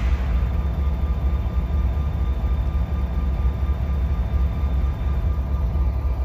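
EMD MP15AC diesel switcher locomotive idling while parked, its 12-cylinder two-stroke engine giving a steady low rumble. Faint steady high tones sit above it.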